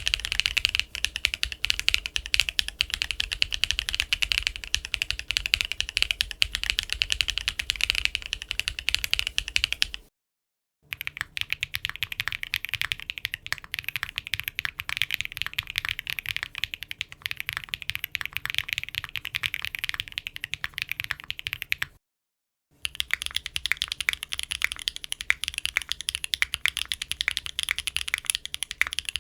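Typing on a mechanical keyboard fitted with Wingtree Yuying V2 light tactile switches: a rapid, continuous run of keystroke clicks. It comes in three takes separated by brief silences, about 10 and 22 seconds in.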